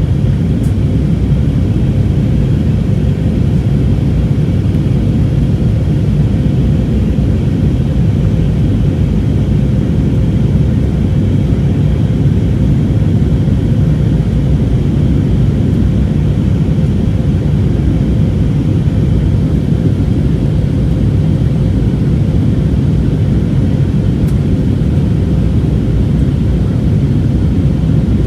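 Steady in-flight cabin noise of an Airbus A320neo on descent, airflow and its CFM LEAP-1A engines together: an even low rumble with a faint steady hum and no change in level.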